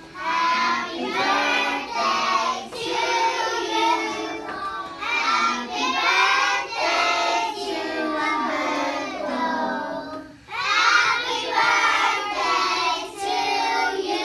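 A group of young children singing together in chorus, with a short break about ten seconds in.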